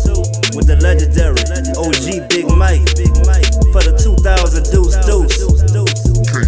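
Hip hop music: a beat with a deep sustained bass line that drops out briefly a few times, steady hi-hats and claps, and a vocal over it.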